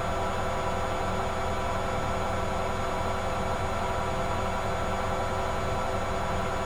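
Servis MK322 washing machine spinning at a steady high speed: its brush motor and drum give a constant hum and whine made of several steady tones.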